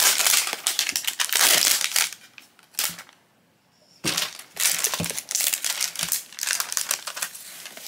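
Crinkly clear plastic wrapper rustling and crackling as hands pull it off a small cardboard blind box. It breaks off into silence for about a second, about three seconds in, then the crinkling resumes.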